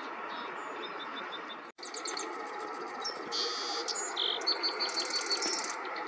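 Small songbirds calling and singing: short runs of high repeated notes and several buzzy trills over a steady outdoor hiss. The sound cuts out briefly just under two seconds in.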